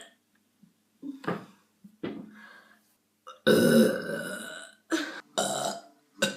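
A person burping several times: two short burps in the first couple of seconds, then a long, loud burp about three and a half seconds in, followed by a few shorter ones near the end.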